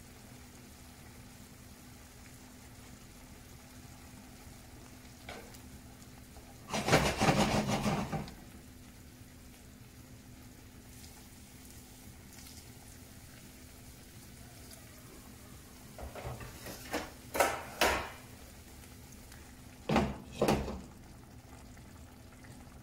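Cookware handling on a stovetop over a faint steady hum: a loud noisy burst lasting about a second and a half, then, in the last third, a run of short clatters and knocks as a glass lid is set onto a cast-iron skillet.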